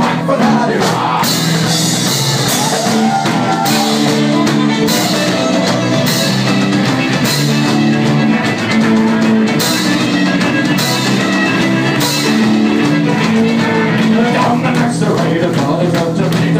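Live rock band with a fiddle playing a tune: bowed violin over electric guitar, bass guitar and drum kit. The cymbals drop out and come back in several times.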